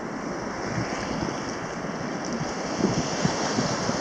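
Small surf waves washing over the shallows, with wind noise on the microphone, and a few short splashes about three seconds in.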